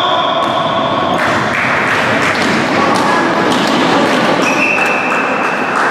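Basketball game play in a gym: sneakers squeaking on the court floor, one squeak near the start and a longer one in the last second and a half, over thuds from the ball and echoing players' voices.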